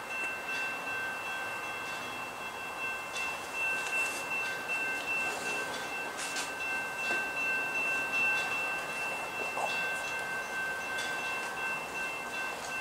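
Distant railroad grade-crossing bell ringing steadily, heard as two constant high tones, with a few faint clicks.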